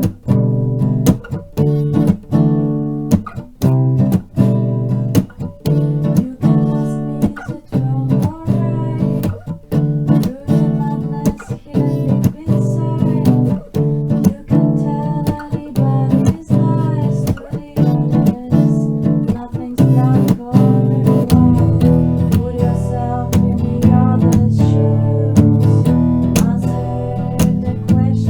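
Music from a jam: acoustic guitar strumming chords in a steady rhythm, with a melodic line above it. A low bass part joins about three quarters of the way through.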